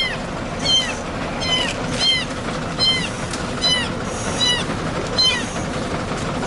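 An injured young kitten mewing over and over: short, high-pitched cries, each rising and then falling, about one every three-quarters of a second.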